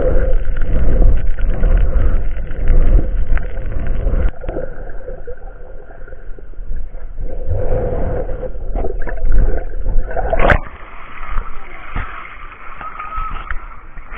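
Muffled underwater rumble and gurgling of sea water, heard through an action camera's waterproof housing while snorkeling over coral, with one sharp knock about ten seconds in.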